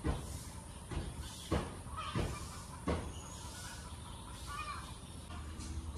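Footsteps on bare, soft earth, about five steps in the first three seconds, then stopping, with birds calling around.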